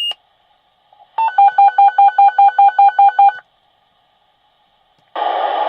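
Fire dispatch radio alert tone: about two seconds of rapid beeping, roughly five beeps a second at a steady pitch, sent over the radio before a dispatch. A short tone at the very start ends the previous transmission. Near the end a loud burst of radio static comes in as the channel is keyed.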